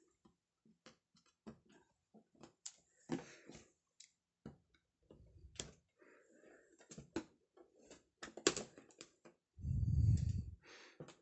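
Scissors snipping and scraping at the edge of a cardboard Lego box to cut it open, with irregular sharp clicks and rustles of hands on the box. A dull, low thump lasting about a second comes near the end.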